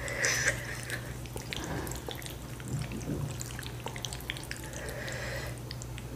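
Wooden chopsticks stirring and lifting saucy noodles in a bowl: soft wet squelches with scattered light clicks.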